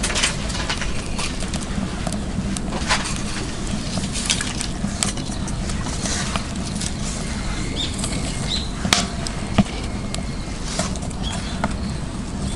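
Burning firewood crackling and popping in irregular sharp snaps over a steady low rumble.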